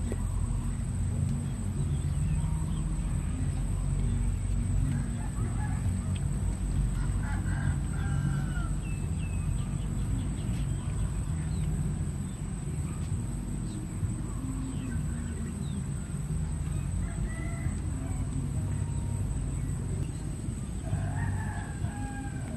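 Chickens clucking, with a rooster crowing once near the end, over a steady low rumble.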